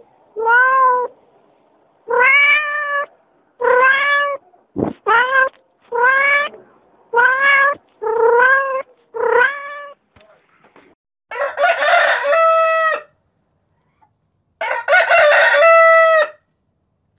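A cat meowing over and over, about eight meows in ten seconds, followed by a rooster crowing twice.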